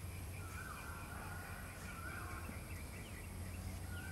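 Birds calling outdoors: several repeated calls, each about half a second long, mixed with short rising chirps, over a steady low hum.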